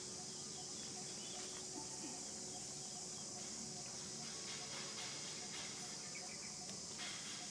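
Steady high-pitched drone of insects, with faint scattered ticks and rustles.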